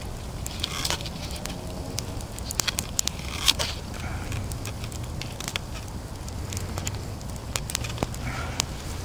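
Small twig campfire crackling, with irregular sharp pops, and a louder snap or knock about three and a half seconds in.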